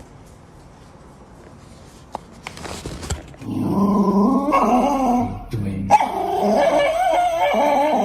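A dog vocalizing in two long, wavering calls, starting about three seconds in after a few faint taps and scuffles.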